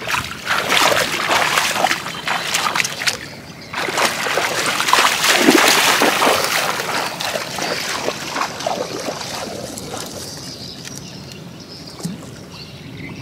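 Water splashing and sloshing in quick, repeated splashes, loudest about five to six seconds in and dying away over the last few seconds.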